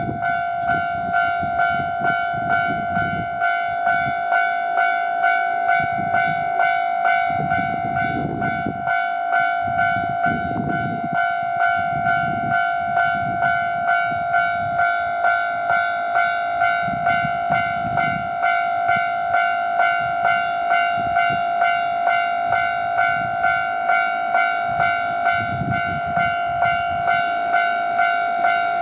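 Japanese railroad crossing alarm ringing its repeated 'kan-kan' tone, a single pitched clang at a little more than one strike a second, with an irregular low rumble underneath.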